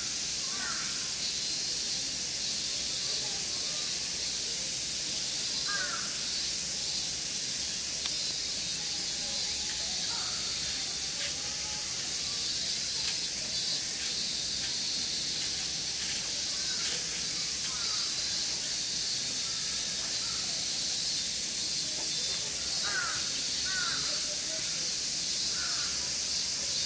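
Steady high-pitched hiss of outdoor ambience, with a few faint short calls scattered through it, several close together near the end.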